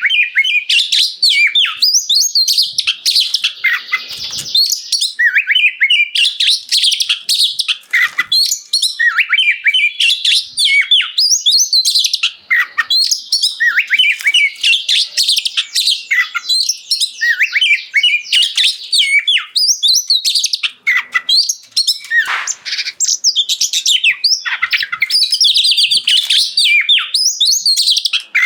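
Oriental magpie-robin (kacer) in full, loud song: a continuous rapid stream of varied whistles, rising and falling glides, trills and chattering notes, with no real pauses. This is the vigorous, clear-voiced singing that keepers call 'gacor ngeplong'.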